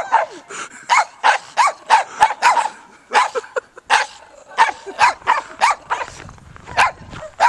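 Small dog barking in short, sharp, high yaps, about two to three a second with a brief pause near the end, during play-wrestling in snow.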